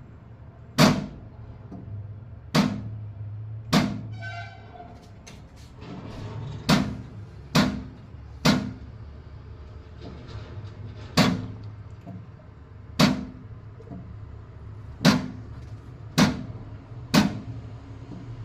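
Microtek power inverter making an abnormal sound: about eleven sharp, loud clicks at uneven intervals of one to two seconds over a steady low hum.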